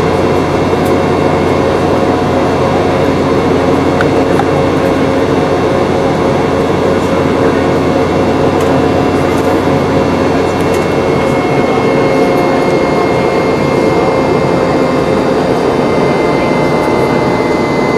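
Steady cabin noise inside a Boeing 717-200 in flight: the rear-mounted Rolls-Royce BR715 turbofans and airflow make a constant roar with a steady hum. A high engine whine grows plainer in the second half.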